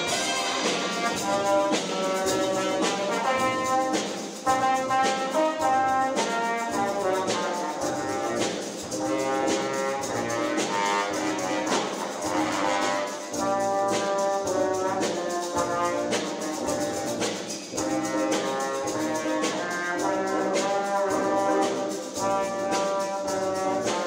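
A middle school jazz big band playing live, with trumpets and trombones to the fore in held, stacked chords and sharp accented hits over the drum kit.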